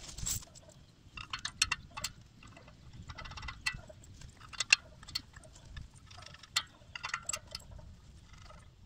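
Steel bolts, nuts and washers clinking and tapping against the steel base plate of a solar tracker post as they are fitted, a scattered run of short metallic clinks, with a thump right at the start.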